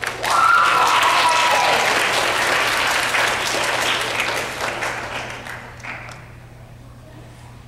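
Congregation applauding, a loud burst of clapping for about five seconds that then dies away, greeting a baptism by immersion.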